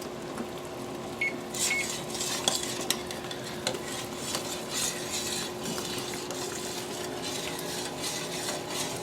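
A spoon stirring and scraping in a pot of boiling chocolate cookie mixture on the stove, with a light bubbling sizzle and irregular small clinks against the pot. Two short beeps sound about a second in.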